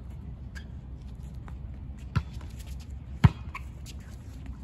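A volleyball being struck: two sharp smacks about a second apart, the second the louder, over a low steady rumble and faint scuffing.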